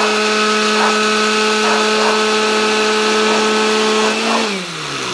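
Countertop smoothie blender on its ice-crush setting, its motor running at a loud, steady high speed while it grinds hot Cheetos into crumbs. About four seconds in it is switched off and the motor winds down, its pitch falling away.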